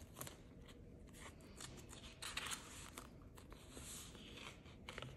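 Faint rustling of a polymer banknote against a clear plastic binder envelope as the note is handled and slipped in, with a few light clicks.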